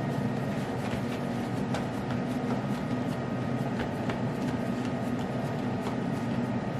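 A steady low mechanical hum, like a running fan or appliance motor, with scattered faint light ticks.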